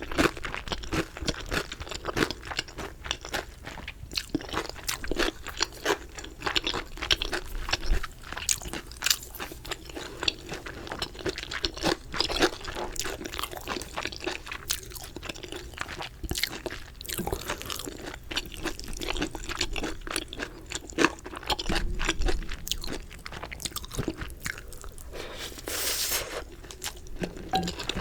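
Close-miked chewing and crunching of chicken: a continuous run of sharp crackly crunches as the crisp pieces are bitten and chewed.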